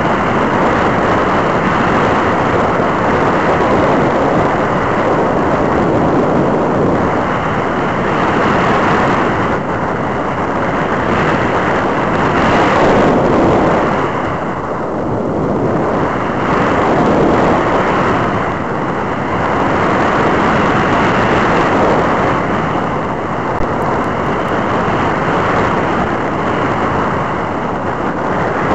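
Loud, steady rush of air over the onboard camera of a powered glider in flight, swelling and easing every few seconds as the aircraft manoeuvres.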